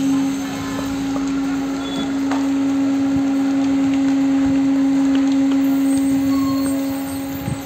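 A machine running with a steady hum at one unchanging pitch, over a constant hiss of background noise.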